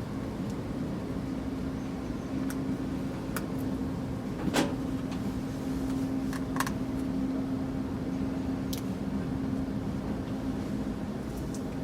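Small clicks and taps of a screwdriver and loose screws on a laptop's underside, the loudest about four and a half seconds in, over a steady low hum of background noise.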